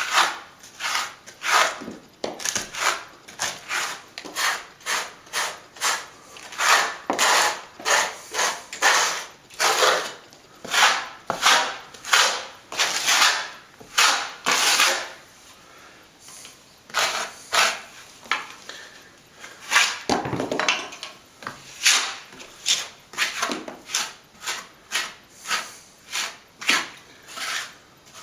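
Repeated scraping strokes of a plastering tool over a patch of stopping plaster mixed with fine sand, scraped back while it is partly set and firming up. The strokes come about two or three a second, with a short pause about halfway through.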